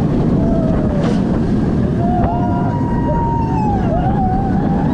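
Roller coaster ride heard from the front seat: steady rushing wind and the train's rumble on the track, with riders screaming from about two seconds in.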